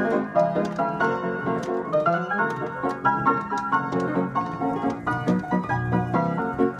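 Upright Aeolian player piano (pianola) playing a lively, busy tune of quick notes and chords, driven from a perforated paper music roll by foot-pumped pedals.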